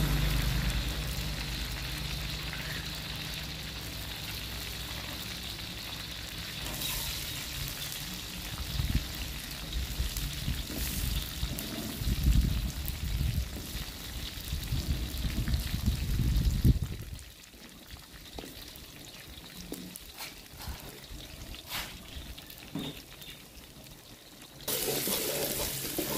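Hot oil sizzling in a wok as dried chillies and curry leaves fry, with a low rumble through the first half and scattered clicks as shallots, garlic and bird's eye chillies are added. Near the end a metal spatula stirs the mix and the sizzling gets louder.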